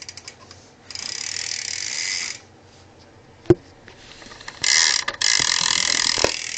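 BMX rear hub freewheel ratcheting in a fast, even buzz as the back wheel spins, kind of loud. It runs twice, the second time louder, with a single sharp knock between the two.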